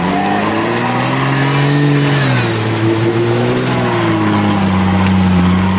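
Off-road Jeep's engine running under load as it is driven and winched up through undergrowth, its revs slowly rising and falling.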